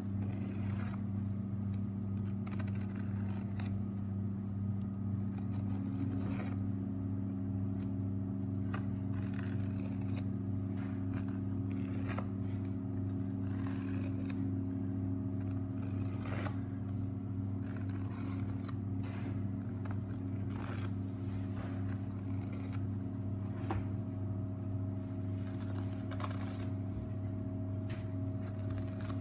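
Knife scraping and cutting along reindeer rib bones in short, irregular strokes, over a steady low machine hum that is the loudest sound.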